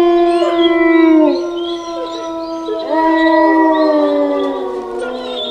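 Wolves howling together, several long overlapping notes that slowly slide down in pitch. A fresh howl swells about three seconds in, then fades away.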